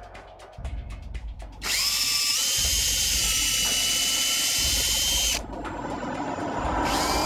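DeWalt 18V cordless drill boring pilot holes for lag bolts into a wooden post. It first turns slowly with rapid ticking, then spins up to a steady high whine, eases off a little past halfway, and spins up again near the end.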